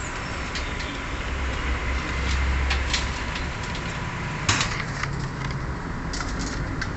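Clicks and light knocks of hand tools and parts being worked during fuel-pump and filter removal, with one sharper knock about four and a half seconds in, over a low steady rumble.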